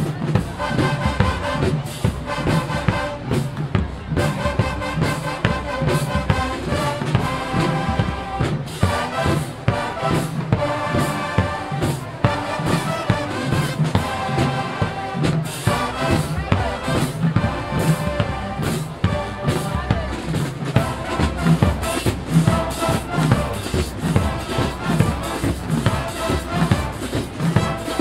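Marching band playing: brass horns carry the tune over a steady beat from the drumline.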